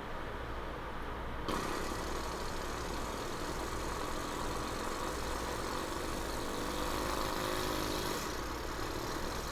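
A person imitating a car engine with their mouth, a continuous idling-like drone that turns hissier about a second and a half in.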